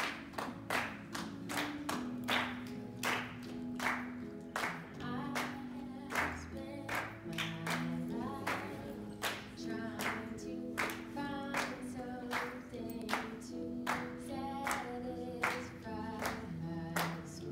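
Several voices singing a gospel song in harmony, with long held notes, over steady hand-clapping on the beat at about two claps a second.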